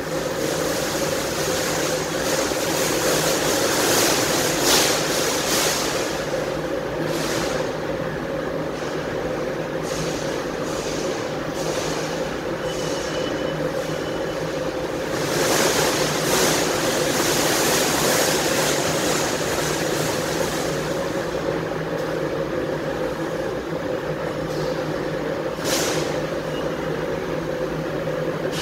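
Mitsubishi NX fiber laser cutting machine at work on 1.6 mm sheet metal: a steady machine hum with repeated bursts of hissing as the cutting head cuts, the longest about halfway through.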